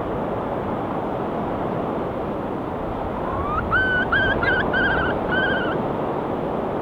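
Steady wash of sea surf, with a gull calling about halfway through: a rising note, then a run of about five short wavering calls.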